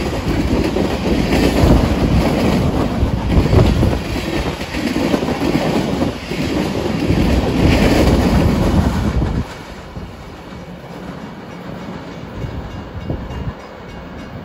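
Union Pacific manifest freight train's tank cars and covered hoppers rolling past close by, steel wheels running loudly over the rails. About nine seconds in the sound drops suddenly to a quieter, steady rumble of the train running away down the line.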